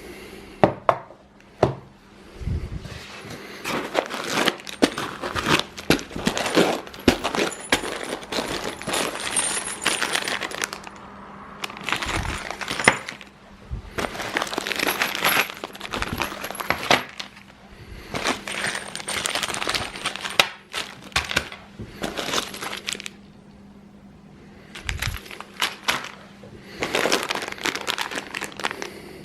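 Parts of a 3D printer kit being unpacked and handled: small hard pieces clicking and clinking, and packaging rustling. The sound comes in bursts of several seconds with short pauses between, over a steady low hum.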